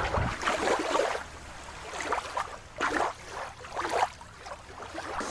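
Water sloshing and splashing in several short bursts as a plastic toy shark is moved through it.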